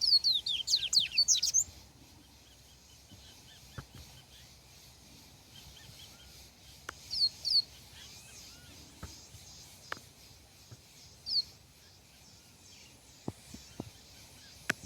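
Papa-capim seedeater singing: a fast run of sharp, sweeping chirps at the start, then short pairs of chirps about halfway through and once more later, with a few faint ticks in between.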